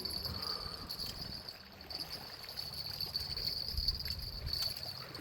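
Insects trilling steadily in one continuous high-pitched tone, over a faint low background hiss.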